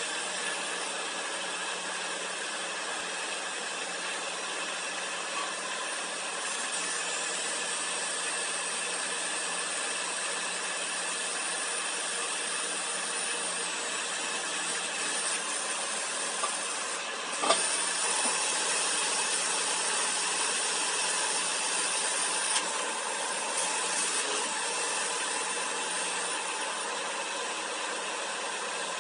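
HanFa HFP200 portable core drilling rig running: a steady mechanical whir with a high hiss from its power unit and drill head. There is a sharp click about 17 seconds in, after which it runs a little louder.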